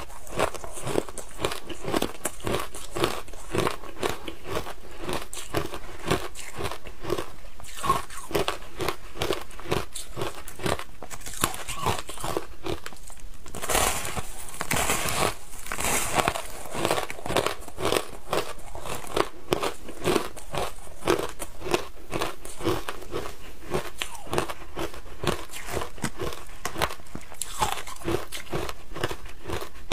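A frozen block of shaved ice being bitten and chewed close up: a continuous crunching of many short, crisp cracks each second, louder for a few seconds about halfway through as a fresh bite is taken.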